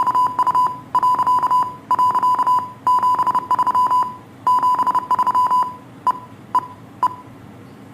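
Morse code: a single high-pitched beep tone keyed in quick dots and dashes, in groups with short pauses between them. Near the end come three lone short beeps about half a second apart, then the keying stops and only a faint hiss remains.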